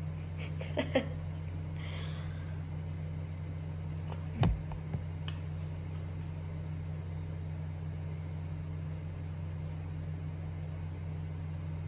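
Steady low hum with a few light clicks in the first second and one thump about four and a half seconds in.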